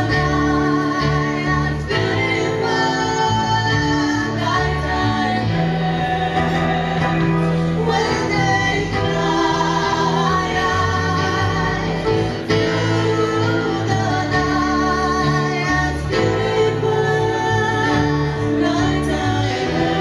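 Live band music: a woman singing held, wavering notes over acoustic guitar and bowed cello.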